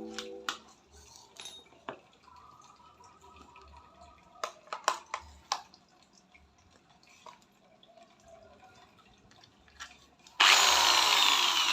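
Scattered small clicks and knocks, then about ten seconds in a power tool starts abruptly and runs loudly.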